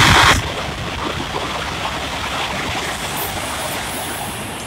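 CRH380A high-speed electric train passing at speed: a steady rush of air and rail noise. It drops sharply in loudness just after the start, then holds steady.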